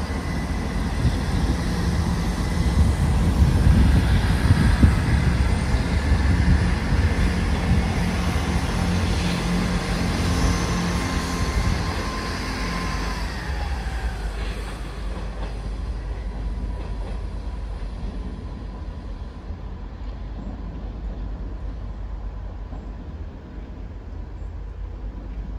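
East Midlands Railway Class 222 Meridian diesel unit pulling out of the station: a loud low engine rumble with a steady whine that drops in pitch about halfway through, then the sound fades away as the train leaves.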